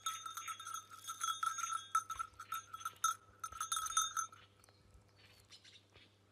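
Plastic bag crinkling in a hand, with a steady high ringing tone underneath; both stop about four seconds in.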